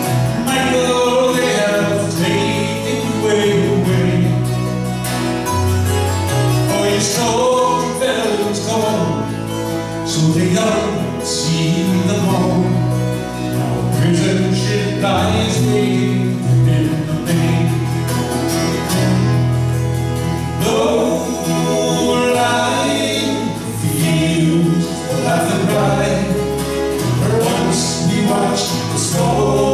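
Folk group singing with harmony vocals, backed by strummed acoustic guitars, a mandolin and a bass guitar.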